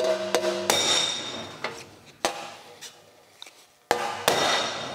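A hammer striking a dented sheet-metal motorcycle fender backed by a steel dolly: several sharp blows, each leaving the metal ringing before it fades. This is dent repair, knocking the raised bump and the puckered metal around it down.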